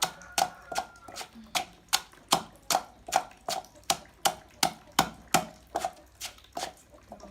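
Pestle pounding steadily in a mortar, about two or three strikes a second, crushing ginger and herbs. The strikes stop near the end.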